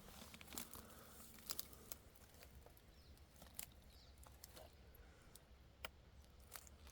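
Near silence, with a few faint, scattered clicks and crackles.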